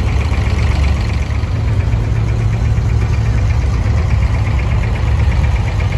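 Diesel engine of an abra, a small wooden water taxi, running steadily with a low drone and a fast, even knock.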